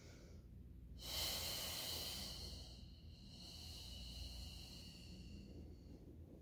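One long, audible exhale as a person curls up from lying to sitting in a Pilates roll-up. It starts about a second in and fades away over some five seconds, over a steady low room hum.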